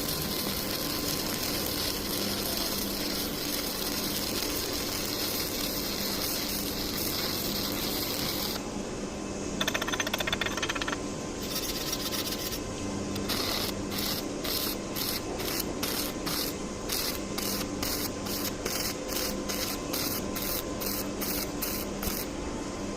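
Electric arc welding on thin sheet metal: a steady crackling arc for the first several seconds, then after a short pause a brief burst, and for the last ten seconds or so the arc struck in short repeated pulses, about one and a half a second, stitch-welding to fill the faulty weld without burning through.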